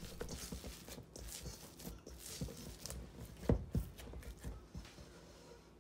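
Risen, oiled pizza dough being punched down by hand in its bowl: scattered soft thumps, with two sharper knocks about three and a half seconds in, growing quieter near the end.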